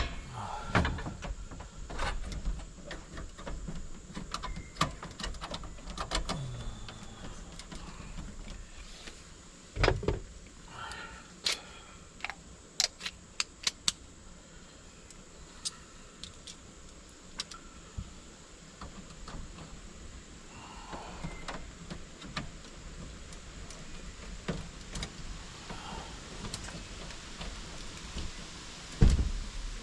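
Irregular clicks and taps of hand work on an electrical panel, as wires and tools are handled, with a couple of louder knocks about ten seconds in and near the end.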